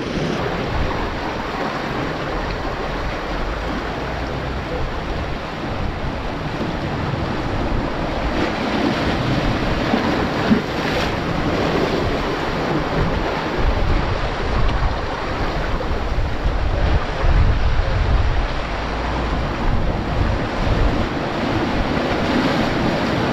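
Sea surf washing and breaking over reef rocks, a steady rushing that swells a little in the second half, with wind buffeting the microphone.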